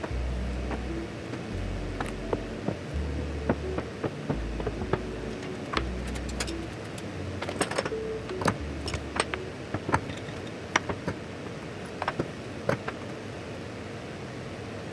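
Small metal clicks and knocks, irregularly spaced, as milling cutters, drills and tool holders are handled and fitted while the tools are set up.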